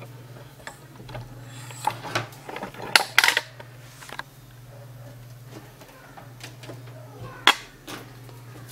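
Scattered knocks and clicks of hands handling an opened flat-screen TV and its cabling, loudest about three seconds in and again near the end, over a steady low hum.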